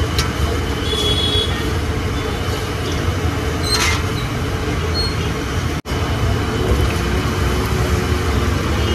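Steady low rumble of road traffic, with faint scattered ticks over it. The sound cuts out for an instant about two-thirds of the way through.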